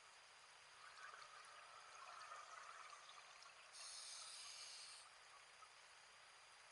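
Faint underwater sound of a scuba diver breathing through a regulator: a soft bubbling for a couple of seconds, then a sharp-edged hiss starting about four seconds in and lasting just over a second.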